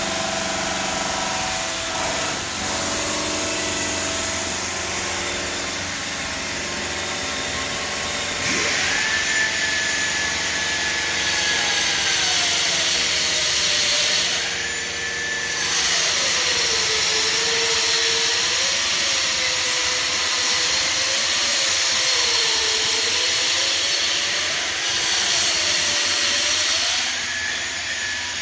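Denver 5-axis CNC bridge saw cutting 20 mm black granite: a steady hiss of blade and water with a motor whine whose pitch wanders up and down. A higher whistle drops out and returns a few times.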